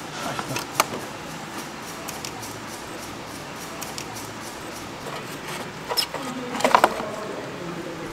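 Clicks and clacks of metal and plastic parts being handled in a car's engine bay as a metal intake pipe is unclipped and lifted out: a sharp click about a second in, then a short cluster of knocks and clatter near the end.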